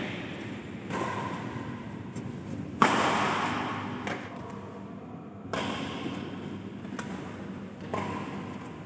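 Badminton rackets hitting a shuttlecock back and forth in a rally: about six sharp hits a second or more apart, the loudest about three seconds in, each ringing on in the echo of a large hall.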